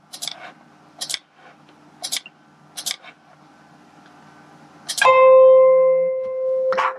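Sharp clicks of computer input, four of them about a second apart, then a single pitched note from the Mus2 notation software's playback that holds for nearly two seconds before another click.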